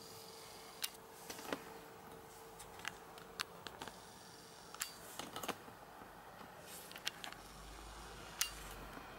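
Quiet room tone with scattered small, sharp clicks and taps from a handheld camera being moved, with a faint steady hum in the first half and a low rumble near the end.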